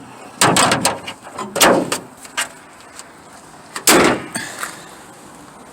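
Three loud clunks or bangs, like a door or panel being handled, spaced a second or more apart.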